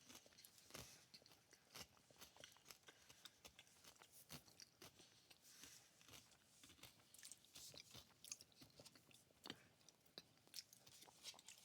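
Faint, irregular crunching and chewing of a crispy fried cream cheese wonton.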